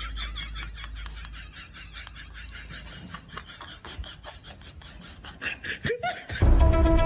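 Snickering laughter in quick, short pulses, fainter than the laughter just before. Near the end, music with held tones cuts in suddenly.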